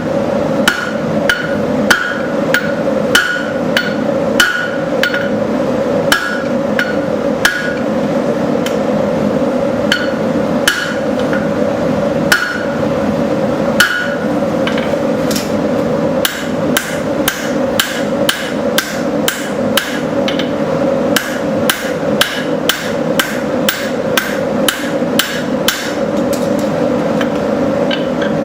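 Hand hammer striking hot steel on an anvil, each blow with a short metallic ring. The blows are spaced irregularly at first, then quicken to an even run of about three a second from about halfway. A steady drone runs underneath.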